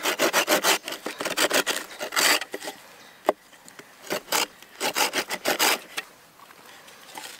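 Bahco Laplander folding saw cutting shallow stop cuts into the end of a green branch, in two runs of quick short strokes: one from the start to about two and a half seconds in, and another from about four to six seconds in.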